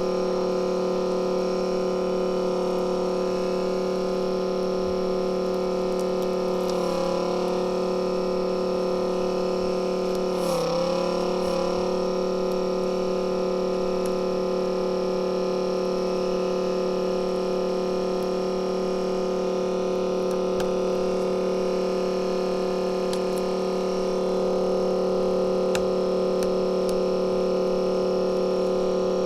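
Steady electrical hum made of several fixed pitches, wavering briefly about seven and ten seconds in.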